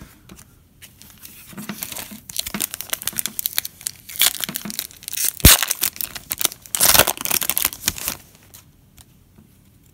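Foil wrapper of a Panini Donruss Elite football card pack being torn open and crinkled: a dense run of crackles with a sharp crack about five and a half seconds in.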